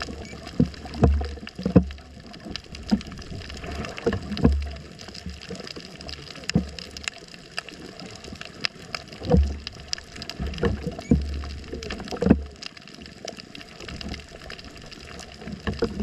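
Underwater water sound: gurgling and bubbling, with irregular low swells and sharp clicks every second or so.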